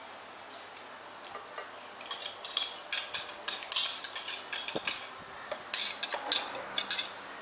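Kitchen utensil scraping and clicking against a container in quick, irregular strokes, starting about two seconds in, as cream is added to the mixture.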